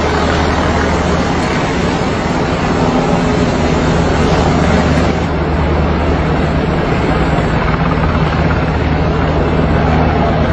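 Helicopter running: a steady, loud drone with low engine tones under a dense noise.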